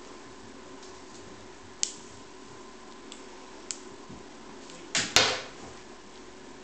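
Light scattered taps and ticks of kittens' paws and the wand toy on a wooden floor. About five seconds in there is a louder short clatter of two quick hits as the wand toy's stick comes down onto the floor.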